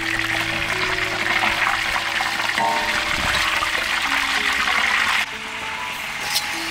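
Whole freshwater fish sizzling in a wok of hot frying oil, a steady hiss that cuts off about five seconds in. A single sharp click near the end.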